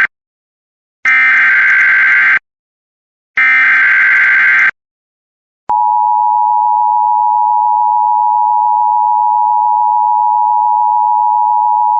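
Emergency Alert System SAME header: the tail of one data burst, then two more bursts of warbling two-pitch data tones, each just over a second long and a second apart. These encode a severe thunderstorm warning. About six seconds in, the steady EAS attention tone starts and holds on.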